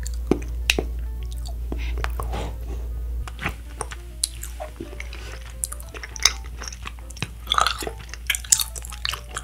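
Close-miked biting and chewing of a Nik-L-Nip wax bottle candy: irregular crisp clicks and crunches of the soft wax, with a cluster of louder ones near the end.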